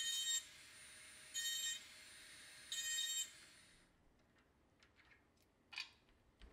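A high-pitched, alarm-like beep sounding three times, about every second and a half, over a steady hiss that stops about four seconds in. A few faint clicks and a light knock follow near the end.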